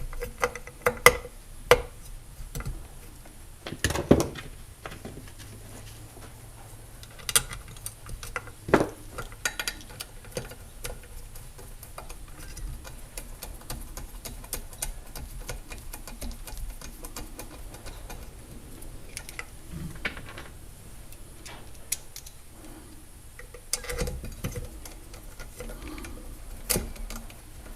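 Scattered small metallic clicks, clinks and a few louder knocks of trolling motor parts being handled and fitted together by hand, as the brush plate and housing are worked into line.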